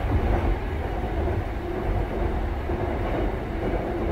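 Cabin running noise of a Busan Metro Line 3 train with Hyundai Rotem IGBT-VVVF drive: a steady low rumble of the car and its wheels on the rails as it travels between stations.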